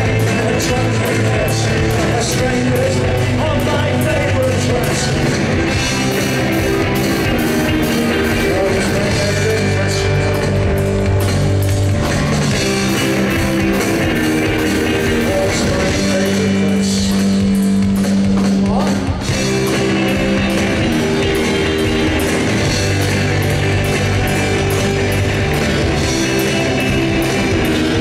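Indie rock band playing live and loud: electric guitar, bass guitar and drum kit driving along together.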